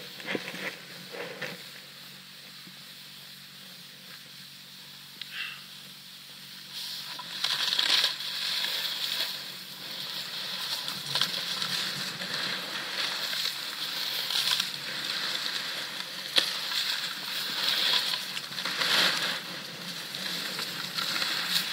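Snowboard sliding and carving through powder snow: a hissing scrape that swells and fades with the turns. It is quieter for the first several seconds and fuller from about seven seconds in.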